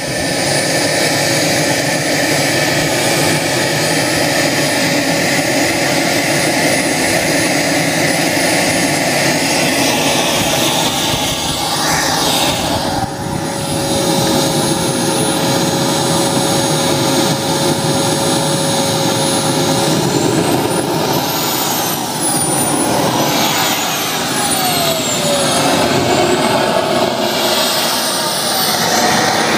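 Small turbine engine of a radio-controlled model jet running, a loud rushing noise with a high whine. About two-thirds of the way in its pitch starts gliding up and down several times as the throttle is worked.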